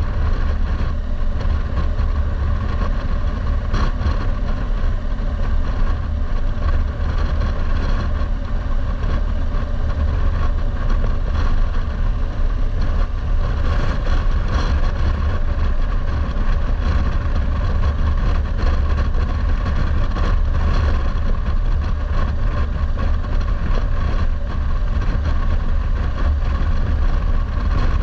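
Motorcycle cruising at a steady speed of about 55 km/h, its engine holding a steady hum under a heavy low rumble of wind on the microphone.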